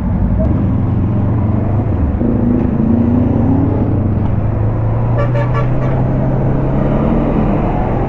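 Motorcycle engine running at a steady pitch, with a short horn toot about five seconds in.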